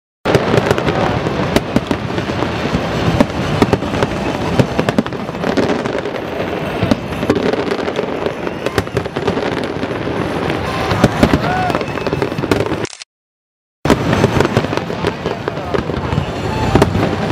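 Fireworks display: a dense, continuous crackle and bang of bursting shells. The sound cuts out for about a second near the end.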